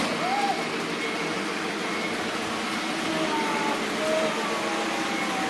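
Lionel O gauge Polar Express model train running on its track, a steady rumbling hum.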